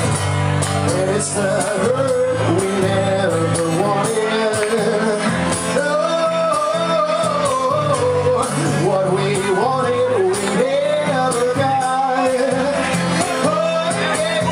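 Acoustic guitar strummed in steady chords while a man sings long, wordless held notes over it, amplified through a live sound system.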